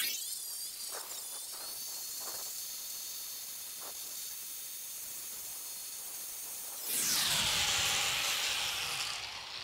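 Angle grinder with a sanding disc rounding off the corner of a timber bed frame. The loud sanding noise drops at the start to a quieter steady hiss and thin high whine, then loud sanding returns about seven seconds in and tails off near the end.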